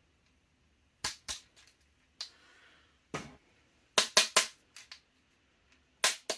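Hammer knocks on a pin punch driving a tight body pin out of an airsoft rifle's receiver. The sharp knocks come as a pair, then single knocks, a quick run of three about four seconds in, and two more near the end.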